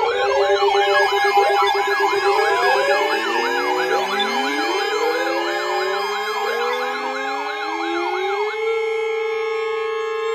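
Several weather alert radios sounding their alarms at once for a new severe thunderstorm warning: overlapping warbling sirens about three sweeps a second, rising siren glides and steady alert tones. The fast warble stops near the end, leaving the steady tones.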